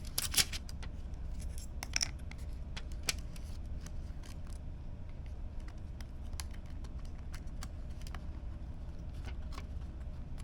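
Hard plastic packaging of a DDR5 RAM stick being worked open by hand: sharp plastic clicks and crackles, thickest in the first few seconds, then sparse, over a steady low hum.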